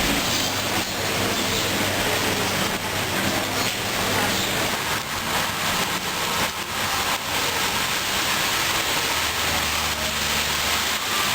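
Railway station platform ambience: a steady rushing noise with a faint low hum underneath and a few light knocks.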